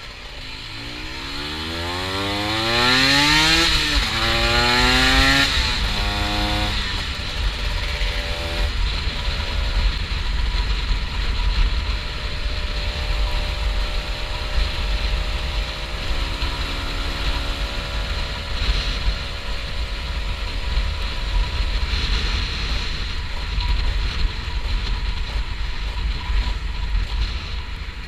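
Honda NSR125's two-stroke single-cylinder engine revving up hard through a gear, shifting about four seconds in, revving up again, then dropping in pitch in steps as the bike slows and downshifts before running at a steadier, lower speed. Wind rumble on the microphone runs underneath.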